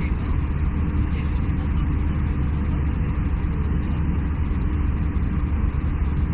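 Steady cabin noise of an Airbus A320-family jet airliner in cruise, heard from inside the cabin beside the wing: engine and airflow noise over a deep, even hum, with a faint steady tone.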